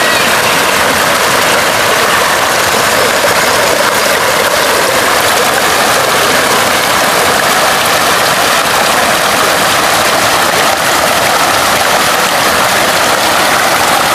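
Water pouring from stone spouts into a bathing pool: a steady, even rush.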